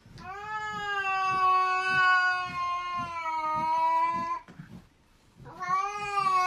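A cat yowling in two long drawn-out calls: the first holds nearly steady for about four seconds, and the second begins after a short pause near the end.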